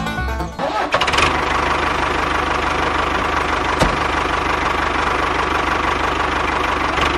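Background music breaks off and a tractor engine starts, then runs steadily with a faint steady whine.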